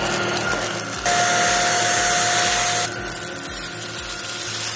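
Greenote GSC60 cordless stick vacuum running with its lit floor head, sucking up scattered rice grains. About a second in it gets louder with a steady whine for roughly two seconds, then drops back to its normal running noise.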